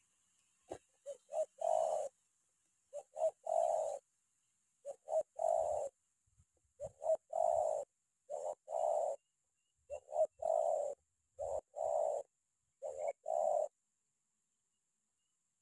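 Spotted dove (terkukur) calling as a decoy in the rapid 'tekanan' style: a cooing phrase of a few short notes run into a longer coo, repeated about every second and a half. The calls stop near the end.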